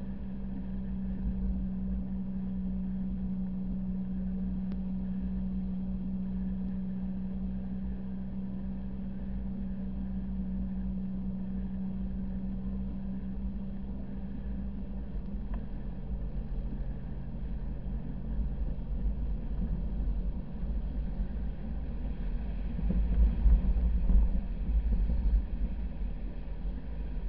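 A vehicle driving on beach sand: a steady engine hum that fades about halfway through, over a low rumble that grows louder and rougher near the end.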